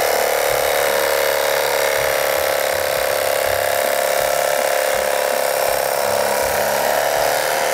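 Cuisinart CEK-30J electric carving knife running steadily, its motor buzzing as the serrated blades saw a thin slice through a block of ham.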